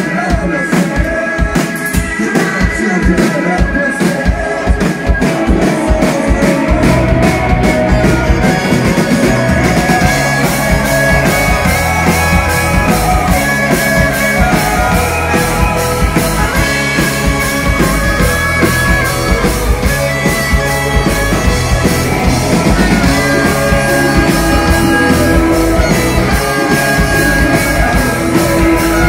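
Rock band playing live, with electric guitar and drums. For the first several seconds the low end is sparse under regular hits, then the bass comes in and the full band plays loud.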